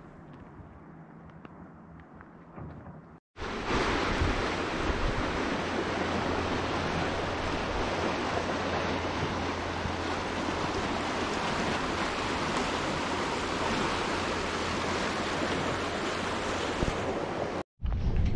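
Loud, steady rushing of a fast mountain river running over rapids, with a low rumble beneath. It starts suddenly about three seconds in, after faint outdoor ambience, and cuts off abruptly near the end.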